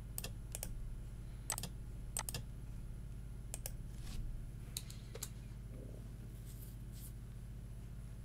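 Scattered clicks of a computer mouse and keyboard, about ten at irregular intervals, as a command is copied and run, over a steady low hum.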